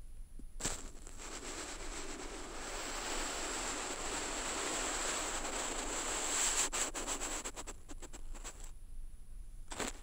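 Coarse ink brush dragged over paper in one long stroke, heard through a piezo contact microphone on the paper: a scratchy rasp that starts with a sharp touch-down about half a second in, grows louder, and breaks into crackling ticks as the stroke ends. A second sharp touch-down comes just before the end.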